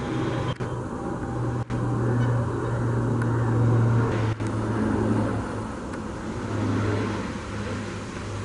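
Indian Railways electric locomotive approaching with its train: a steady low hum over a rumbling haze that swells and eases, cut by three very short dropouts.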